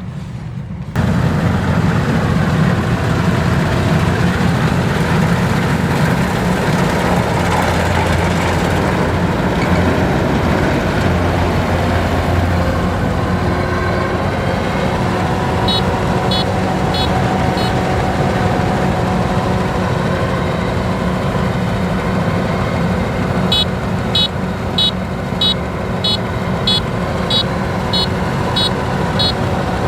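Kubota DC-93 combine harvester's diesel engine running steadily under working load, stepping up in level about a second in. Short high electronic beeps, about two a second, sound over it midway and again through the last quarter.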